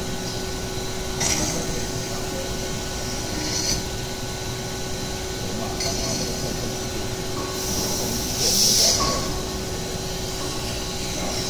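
CNC servo spinning-reducing machine running while its forming roller works a spinning steel catalytic converter shell down to a narrower neck. It makes a steady hum with a constant tone, broken by short high hissing bursts about every two and a half seconds, the longest and loudest about eight to nine seconds in.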